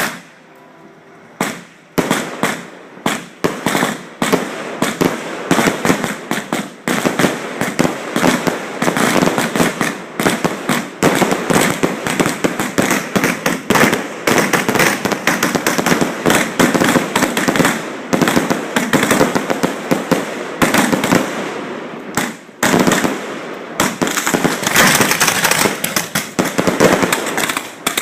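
Fireworks going off at close range from the firing site: a single bang at the start, another about a second and a half in, then a dense, nearly unbroken barrage of bangs and crackling, with a short lull about three quarters of the way through.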